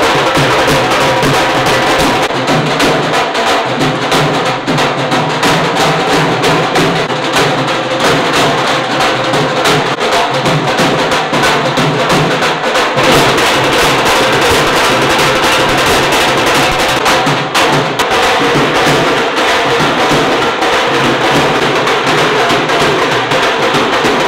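A drum band of snare drums and a bass drum playing a fast, unbroken beat.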